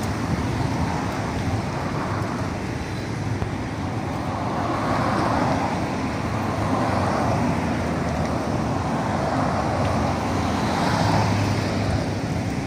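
Road traffic: a steady rush of passing cars, swelling as vehicles go by about five and again about eleven seconds in.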